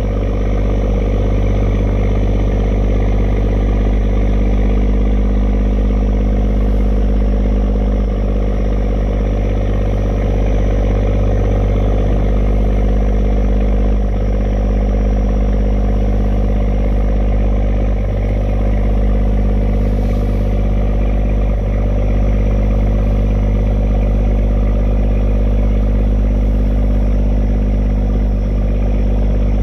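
Fishing boat's engine running steadily at a constant pitch, a low even drone.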